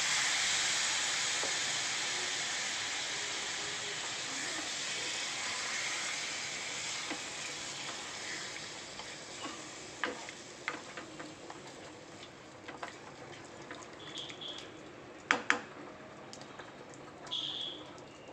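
Water poured into a hot pressure cooker of fried chicken masala, sizzling and hissing loudly at first and dying down over several seconds. Then a spatula stirring and scraping in the aluminium pan, with scattered knocks and two sharp knocks against the pan near the end.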